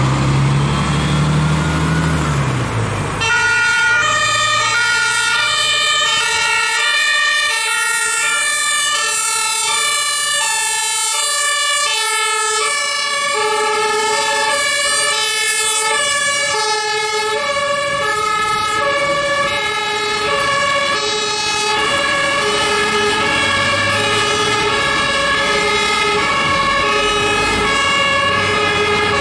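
German fire engines' two-tone sirens (Martinshorn) sounding from several vehicles at once, their high-low alternations overlapping out of step as the fire brigade convoy passes on an emergency run. The sirens come in about three seconds in; before that, a road vehicle's engine rumbles.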